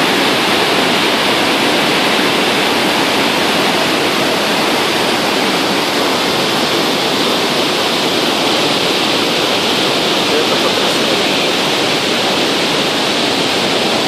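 Iguazu Falls: a loud, steady rush of large cascades of white water falling into the gorge, even and unbroken throughout.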